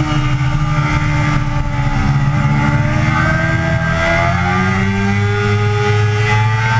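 Yamaha sport bike's engine running at high revs on a race track: it holds a steady pitch through a corner, then the pitch rises from about three seconds in as the rider opens the throttle and accelerates hard. Wind noise rushes over the engine sound.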